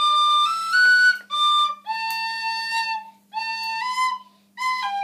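Tin whistle playing a slow, simple melody note by note: three notes stepping up, a drop back, a long held lower note, then a few shorter notes with brief breaks between them. It is a beginner's first line of a national anthem tune.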